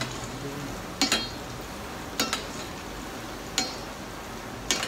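Sliced red onions (Thai shallots) deep-frying in oil with a steady sizzle. A metal utensil stirring them clinks sharply against the pan about once a second, some strikes in quick pairs.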